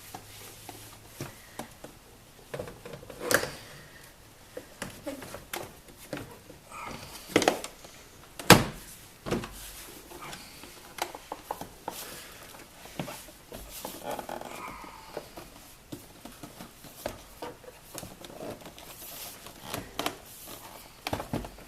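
Plastic glove box being handled and fitted back into a car dashboard: scattered light clicks and rattles with a few sharper knocks, the loudest about eight and a half seconds in.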